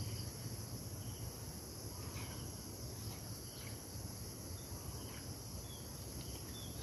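A steady, high insect drone with a low background rumble and a few faint, scattered clicks.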